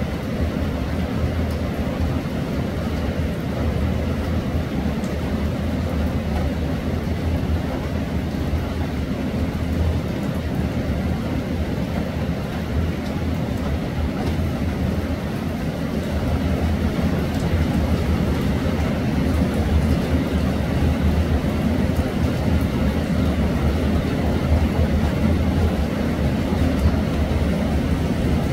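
Steady rainfall, a constant noisy hiss and rumble with most of its weight low down, growing slightly louder in the second half.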